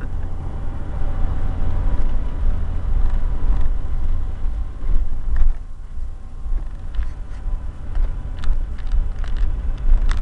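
Four-wheel-drive vehicle climbing a steep, rutted dirt track, heard from inside the cabin: its engine gives a steady deep rumble under load, and sharp knocks and rattles come from the bumps over the last few seconds.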